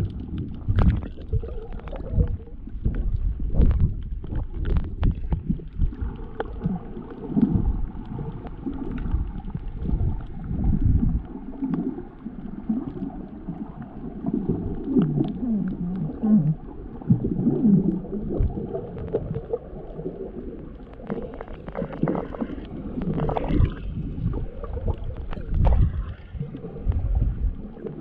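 Muffled water sloshing and gurgling around the microphone, uneven, with irregular knocks and some wavering low tones.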